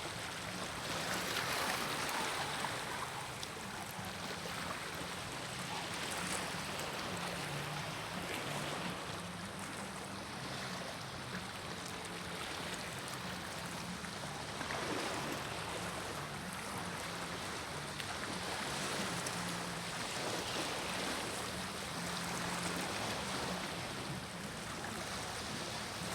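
Sea waves washing onto a beach: a steady rushing that swells every few seconds.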